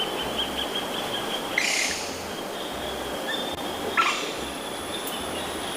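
Steady rush of running water as a muddy toy figure is washed, with two brief louder noises about one and a half and four seconds in.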